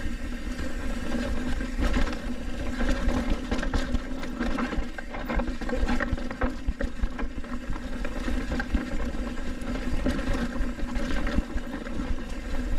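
Trek Roscoe 8 hardtail mountain bike ridden down a rocky dirt trail: a steady rush of tyre and air noise with a constant run of small knocks and rattles from the bike over the rough ground.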